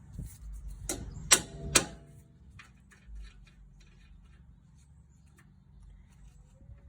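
Small sledgehammer striking a nut threaded flush on a strut pinch bolt three times in quick succession, steel on steel with a short ring after each blow, to drive the knurled bolt out of the strut; a few light clinks follow.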